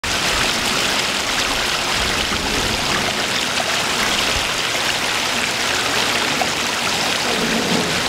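A garden koi pond's waterfall splashing steadily into the pond, an even, unbroken sound of falling water.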